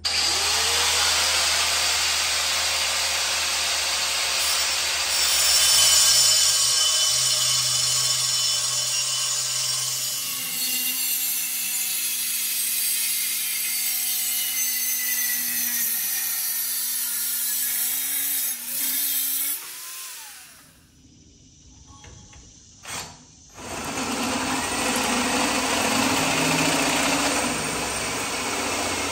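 Power tools cutting and drilling steel plate: a motor spins up and runs under load with a loud hissing rasp. The sound comes in several separate stretches, with a short quieter gap about three-quarters of the way through.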